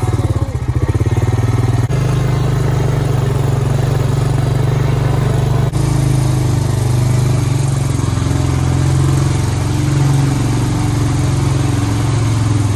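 Engine of a small key-started vehicle running steadily as it drives along.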